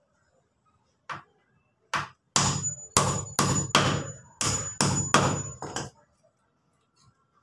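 Hammer striking wood, as in nailing lumber: two single blows, then a quicker run of about ten strikes, with a thin high ring under the middle of the run.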